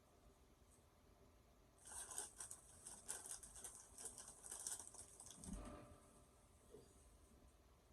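Faint close-up crunching of a taco salad being chewed: a run of quick crisp crackles that starts about two seconds in and fades out around five seconds in, with a short low sound just after.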